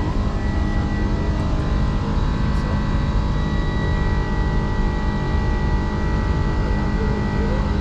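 Steady engine and airflow noise inside the cockpit of an Airbus A310 in flight or on the takeoff run, with a constant high tone over a deep rumble.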